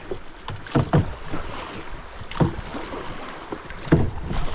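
Inflatable raft being rowed through a river bend: a few oar strokes knock and splash, irregularly about a second or so apart, over steady moving water with wind rumbling on the microphone.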